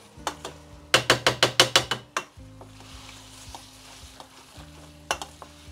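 Wooden spoon stirring and tossing spaghetti in a stainless steel pot, knocking against the pot in a quick run of about ten knocks about a second in, with a few more near the end.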